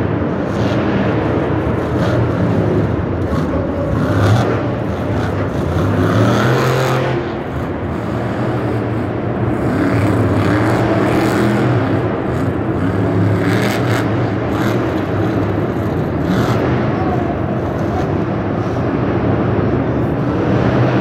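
A monster truck engine revving hard, its pitch rising and falling again and again as the truck spins and drives over wrecked cars. A few sharp knocks are heard along the way.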